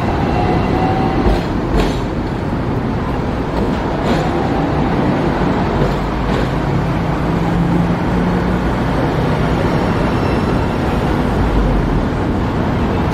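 A Hong Kong double-decker electric tram running along its street tracks amid city traffic, a steady rumble with a couple of short knocks about a second or two in.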